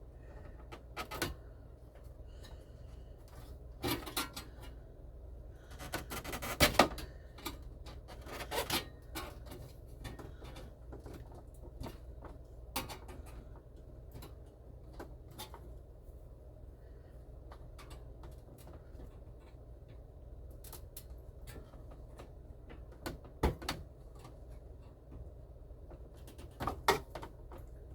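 Scattered clicks, knocks and rubbing from hands handling dash parts and hardware while a radio mounting casing is fitted. The loudest knocks come about a third of the way in and near the end, over a low steady hum.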